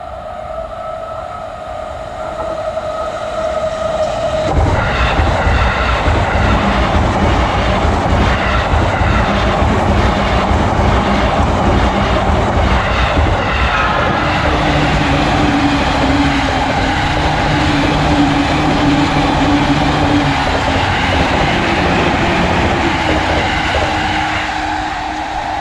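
A Japanese railroad crossing's warning bell ringing with a steady tone. About four seconds in, a JR electric train arrives and passes with loud wheel and rail noise, and a steady low motor hum runs under it.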